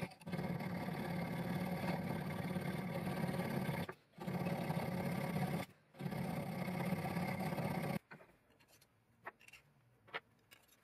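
A file working the tang slot of a carbon-steel tsuba clamped in a vise, making a steady, even scraping buzz that pauses briefly twice and stops about eight seconds in. After that only a few light clicks of metal parts being handled remain.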